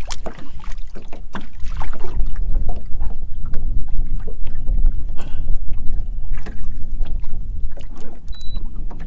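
Strong wind buffeting the microphone in a gusting low rumble, with irregular knocks of waves slapping against the boat's hull.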